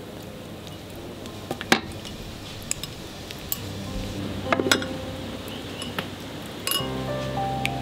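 Metal spoons and glass and ceramic bowls clinking as they are handled and set down: a few sharp, separate clinks, the loudest about two seconds in and a quick cluster of several around the middle. Soft music with held notes comes in near the end.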